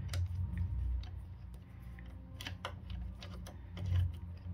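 Irregular small metallic clicks and ticks of a hex key turning in the scooter's steering-column clamp screws as they are snugged down, over a low steady hum.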